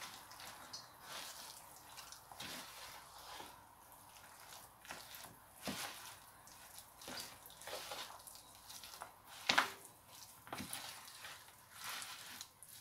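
Hands kneading and squeezing thick, wet gram-flour pakora batter with onion in a plastic tub, a run of soft irregular squishes and clicks, the loudest about three-quarters of the way through.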